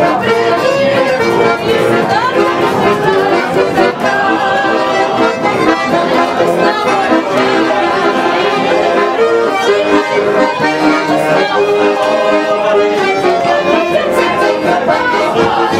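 Button accordion (bayan) playing a tune, with people talking in the background.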